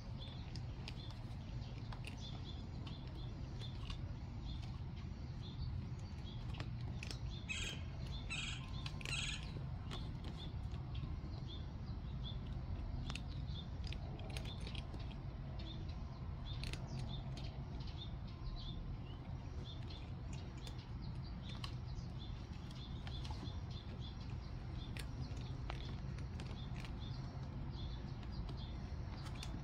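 Small birds chirping in short, repeated high notes, with a louder run of chirps about eight seconds in, over a steady low rumble.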